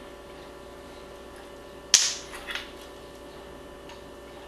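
A single sharp clack from kitchen utensils being handled about two seconds in, with a softer knock half a second later, over a steady electrical hum.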